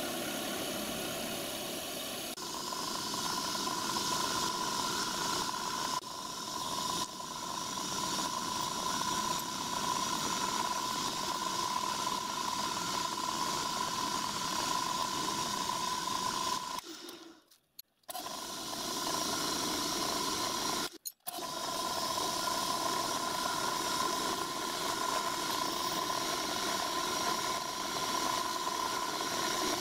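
Milling machine running steadily with a small cutter working a brass block, a constant whine over the machine noise. The sound breaks off briefly twice, past the middle.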